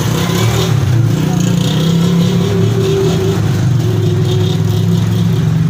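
A loud, steady low drone like a small engine running.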